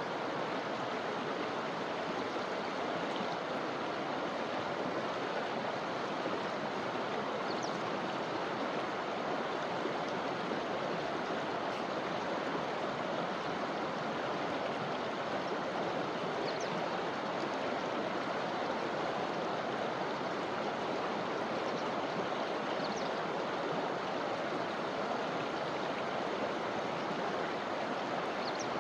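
Forest river flowing steadily: an even, continuous rush of water, with a few faint, brief high chirps now and then.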